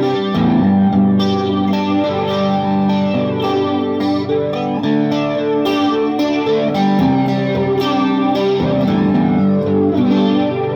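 Japanese Fender Telecaster played through a booster and flanger pedal into a Vox AC15 amp: ringing chords with repeated picked attacks, with a sweeping flanged shimmer and a slight overdriven edge.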